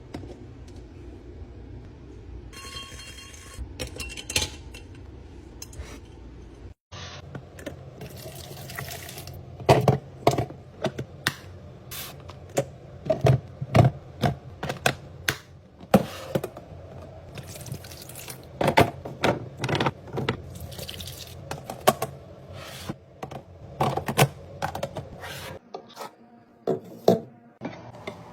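Kitchen handling sounds: dishes and cutlery clinking and knocking in a dense run of sharp taps, with a steadier background hiss during the first seconds.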